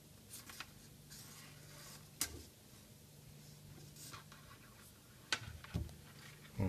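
Scattered clicks, light knocks and rubbing as the cable and metal rail of a Renault Laguna electric window regulator are handled and fitted by hand, the loudest knocks near the end. A faint steady low hum runs underneath for most of the time and stops about five seconds in.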